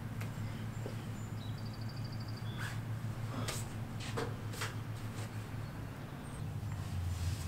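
Outdoor ambience: a few short bird chirps and a quick trill about two seconds in, over a steady low hum.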